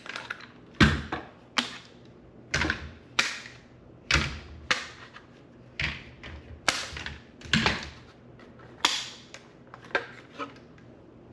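One-handed trigger bar clamps being released and pulled off a glued wooden guitar neck: a string of about a dozen sharp plastic clicks and clacks, irregularly spaced, some with a duller knock.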